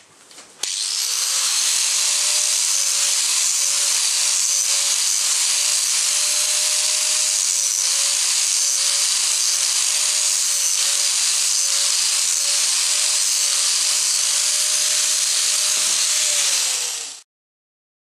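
Electric angle grinder with a sanding disc shaping a wooden grip: a steady motor whine over a loud grinding hiss, the pitch wavering slightly as the disc is pressed into the wood. It starts just after the opening and winds down near the end as it is switched off.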